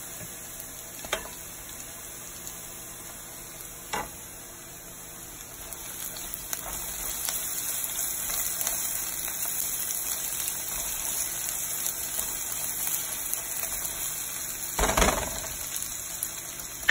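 Sliced onions and ginger-garlic paste sizzling in hot oil in a nonstick frying pan while being stirred with a silicone spatula. The frying gets louder from about six seconds in, with two light taps in the first four seconds and a louder knock near the end.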